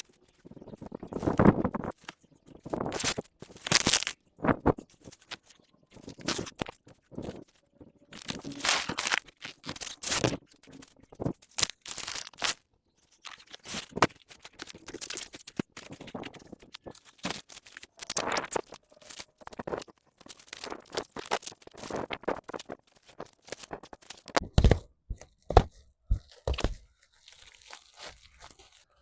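Hands working on shelter materials, making irregular bursts of crinkling, crunching and tearing noises, some short and sharp, with brief pauses between them.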